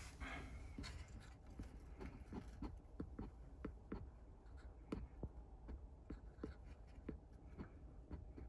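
Faint, irregular clicking and scratching, a few ticks a second, over a low steady hum: Odontolabis dalmanni stag beetles' legs and claws tapping and scraping on the surface they are on.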